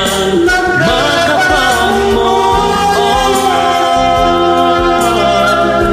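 A man singing over a recorded pop backing track for karaoke, holding long notes with a few sliding turns in his voice.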